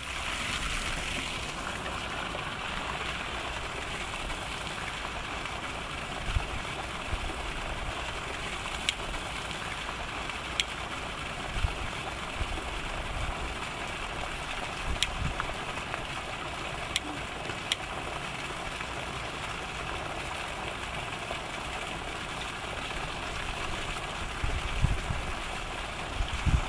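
Steady outdoor rushing noise with low wind bumps on the microphone, and a handful of sharp clicks from a handheld lighter being struck over a wood-burning rocket stove.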